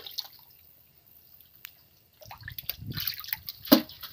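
Hands splashing and sloshing in shallow water over rock. The splashing starts about two seconds in, with a single sharp knock near the end.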